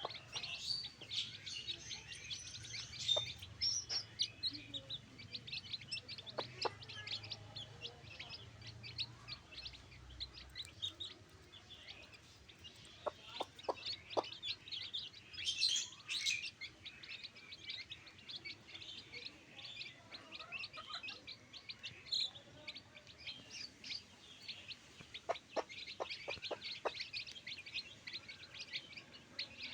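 Backyard chickens calling: constant high-pitched chirping with occasional clucks.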